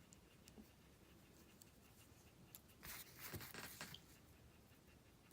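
Near silence, with faint rustling and clicking of small plastic Lego minifigure parts being handled for about a second, about three seconds in.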